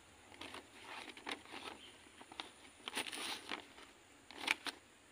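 A small trowel and hands scraping and rustling a dry rice-husk potting mix in black plastic polybags while a rooted cutting is planted. Short irregular scrapes, with two sharper ones about four and a half seconds in.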